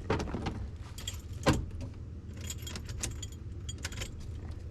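Ignition keys jangling on their ring as the key is turned in a 1980 Ford Bronco, with a single sharp click about a second and a half in. The starter solenoid clicks without the engine turning over, the sign of a battery too dead to crank even on jumper cables. A jump-start donor truck idles steadily underneath.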